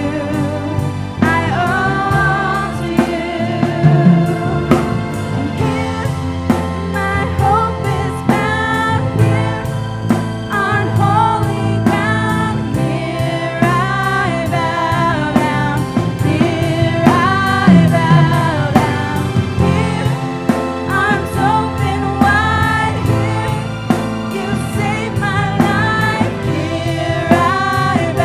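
Christian worship song: singing with a band and drum kit.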